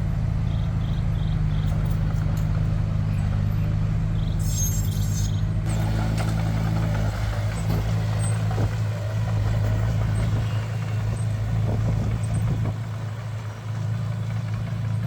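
Heavy construction machine's diesel engine running steadily with a deep, even drone. Short high beeps sound in the first two seconds and again about four seconds in, and a brief hiss comes about four and a half seconds in.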